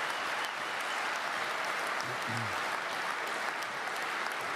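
A large audience applauding steadily, many hands clapping at once in a big hall.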